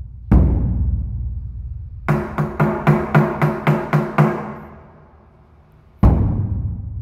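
Large mosque bedug, a big hide-headed drum, struck once with a deep hit that rings on. Then a large wooden kentongan slit drum is beaten in a quick run of about ten knocks, four to five a second, each with a pitched ring. Near the end the bedug is struck again.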